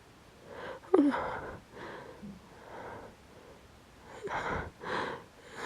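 A woman's pre-sneeze hitching: a sharp voiced gasp about a second in, the loudest sound, followed by several short breathy inhalations about a second apart, her nose irritated by pepper she has sniffed to bring on a sneeze.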